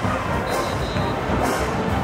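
Marching band music with a steady beat, a high crash marking it about once a second.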